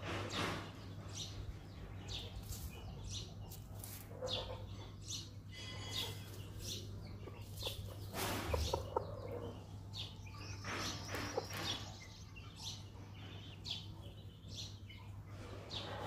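Aseel chickens clucking a few times, with fuller calls about halfway through and again a little later, among short high chirps over a steady low hum.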